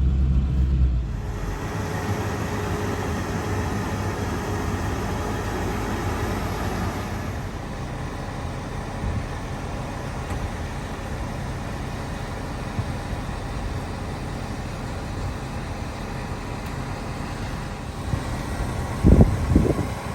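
Vehicle running with steady road noise, heard from inside, with a few loud low thuds about a second before the end.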